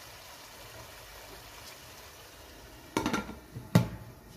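Masala frying and bubbling faintly in a pot. About three seconds in, a steel-rimmed glass lid clatters onto the pot, and a sharp clank as it settles on the rim is the loudest sound.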